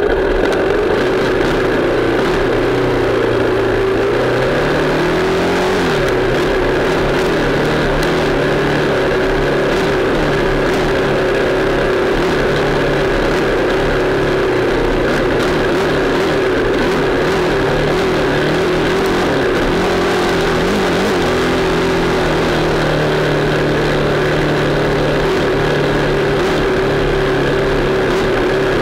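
Dirt bike engine running steadily under way, its note dipping and rising briefly about five seconds in and again around twenty seconds as the throttle changes.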